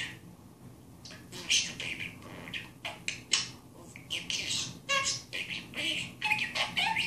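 Small green parrot chattering: a quick, irregular run of chirps, squawks and warbles, with a few clearer whistled notes in the second half.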